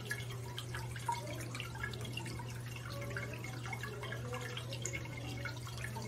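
Cast stone tabletop bowl fountain running: water bubbling up from its small spout and trickling down with irregular drips, over a steady low hum.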